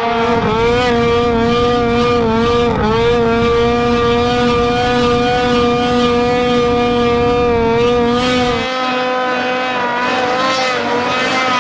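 Snowmobile engine held at high, steady revs as the sled skims across open water, with a brief dip in pitch about three seconds in. The low rumble underneath drops away about nine seconds in while the engine note carries on.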